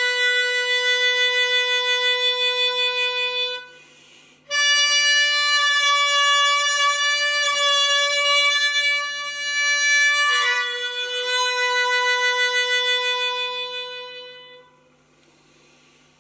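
Hohner harmonica playing a slow melody in long held notes with a wavering vibrato. There is a brief breath break about four seconds in. The last note fades out near the end as the tune finishes.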